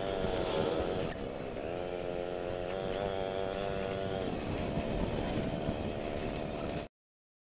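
Motor scooter engines running as a group rides along a road, a steady engine hum over a low rumble, cutting off suddenly near the end.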